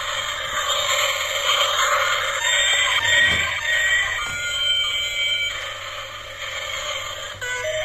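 Battery-operated toy train's electronic sound effects, a loud buzzy, beeping jumble of electronic tones that thins out after about five and a half seconds.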